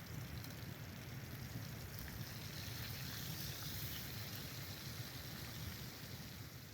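A creek flowing, a steady rushing of water with a few faint ticks.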